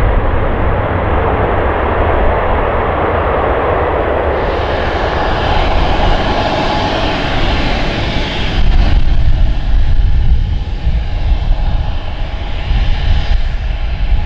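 Steady jet engine noise from twin rear-mounted turbofans on jets at the runway. The sound changes character about four seconds in and again near nine seconds. In the later part it comes from a Bombardier CRJ regional jet's two engines as it taxis.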